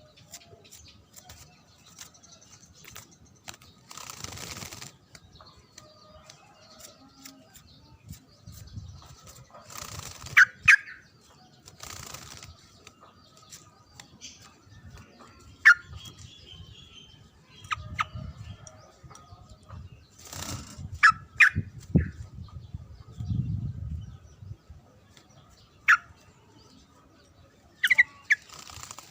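Yellow-vented bulbul (trucukan) giving short, sharp chirps every few seconds. Brief rustling or fluttering bursts come in between.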